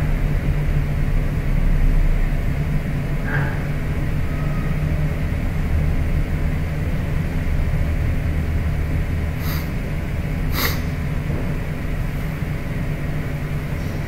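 Steady low rumble and hum of background noise, with two brief sharp clicks about two-thirds of the way through.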